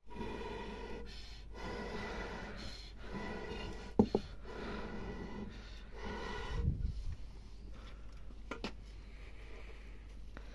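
Breathy, hooting blows into a length of green bamboo, several in a row with short breaks between them. Two sharp knocks come about four seconds in.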